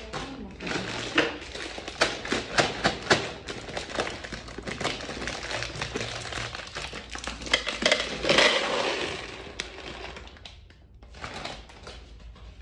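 Kitchen clatter of dishes and containers being handled, with many sharp clicks and knocks, and a denser, louder stretch of noise about eight seconds in.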